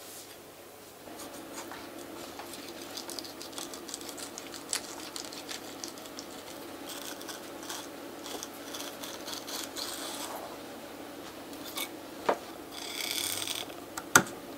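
Knife slicing and scraping along a conger eel (anago) pinned to a wooden cutting board as the eel is opened: light scratchy cutting, with a few sharp knocks on the board near the end.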